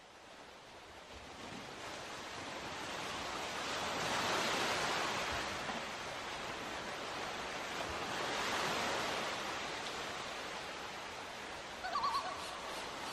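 Sound-effect intro to a song track: a rushing noise fades in and swells twice, then a horse neighs briefly near the end.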